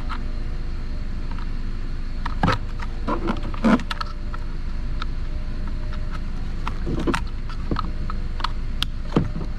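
Scattered plastic clicks and rattles of wiring and connectors being handled inside a car door, in a cluster a few seconds in and again later, over a steady low hum.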